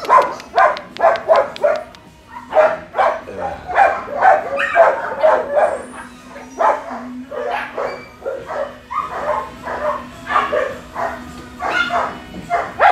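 Kennelled shelter dogs barking and yipping: rapid, overlapping barks, several a second, easing briefly about seven seconds in.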